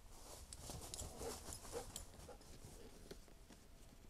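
A dog moving through dry fallen leaves: faint rustling and light clicks, busiest between about one and two seconds in.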